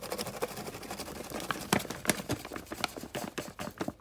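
Flour poured out of a plastic container into a stand-mixer bowl, with a rapid, irregular run of taps and knocks as the container is shaken and knocked against the bowl.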